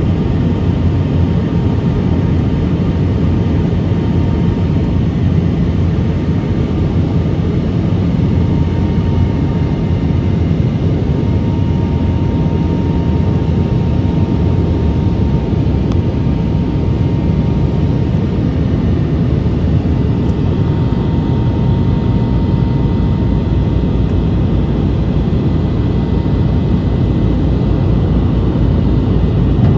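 Steady engine and airflow noise inside a passenger airliner's cabin, with a faint thin whine over it.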